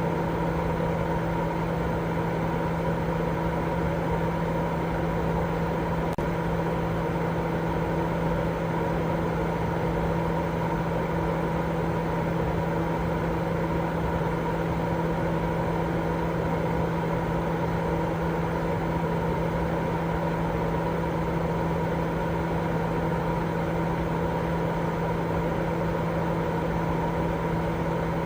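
Continuous baby-sleep white noise: an unchanging hiss with a steady low hum under it and no breaks or changes.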